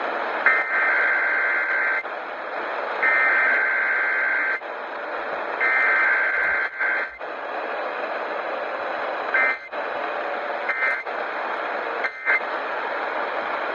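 Emergency Alert System SAME header tones opening a Required Weekly Test: three bursts of buzzing digital data tones, each about a second and a half long, with three much shorter bursts near the end. Steady hiss of radio reception lies underneath throughout.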